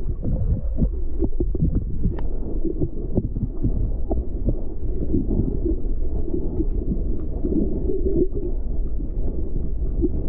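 Muffled underwater rumble from an action camera held below the water surface, with many small knocks and clicks of water and handling against the housing.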